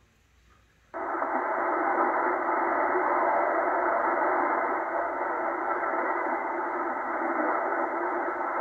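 Radio Mali's shortwave broadcast on 5995 kHz heard from a Tecsun H-501X in upper-sideband mode through a narrow 2.3 kHz filter. The audio is cut off above about 2 kHz and sounds thin and degraded, but is clear of a neighbouring China Radio International signal. It cuts in about a second in after a moment of silence.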